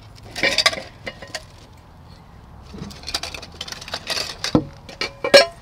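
Rummaging among kitchen items while searching for the nutmeg: two bursts of rustling and clinking, then a few sharp knocks near the end, the last one the loudest.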